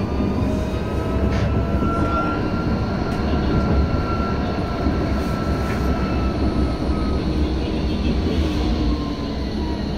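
Tram running along a street, heard from inside the car: a steady rumble of wheels on rails, with a faint high whine that slowly rises and then falls away.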